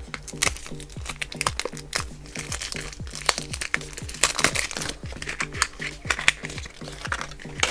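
Plastic toy packaging crinkling and crackling as it is handled and opened, over background music with a steady repeating pattern.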